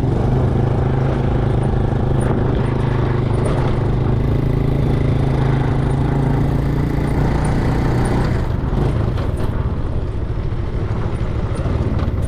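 A vehicle engine running steadily with a low hum, easing off about eight and a half seconds in.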